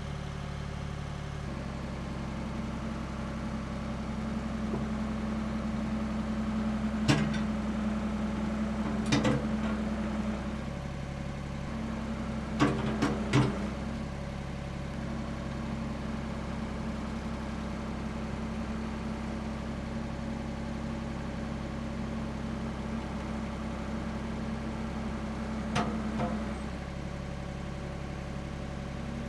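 Ford 555 backhoe's diesel engine running steadily, its note shifting a few times as the machine is worked. A few short, sharp clanks cut in over it.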